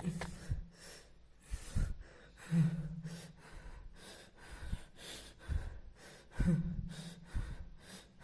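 A person's gasping, heavy breaths, a quick run of short breaths one after another.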